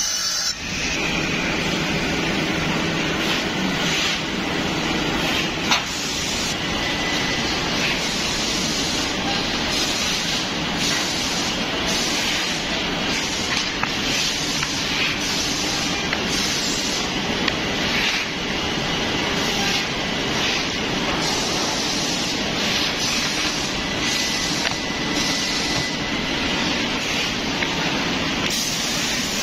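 Steady, loud rushing noise of woodworking machinery running, with one sharp knock about six seconds in.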